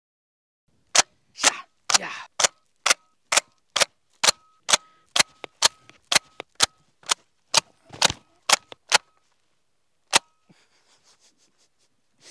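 A run of about twenty single gunshots, roughly two a second, many followed by a short faint ring, then one last shot after a pause.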